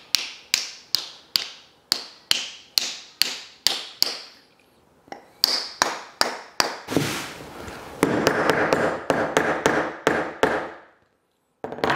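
A small brass hammer tapping wooden wedges into the slot at the top of a wooden mallet's handle, to lock the handle in the head. Sharp, ringing taps come about two to three a second, pause briefly, then give way to a few seconds of faster, denser knocking.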